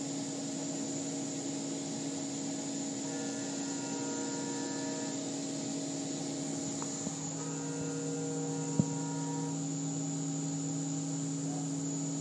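Hurco VMX20 CNC vertical machining center milling aluminum under coolant: a steady machine hum with a high whine, and higher tones that come and go as the cutter works the part. A single sharp click nearly nine seconds in.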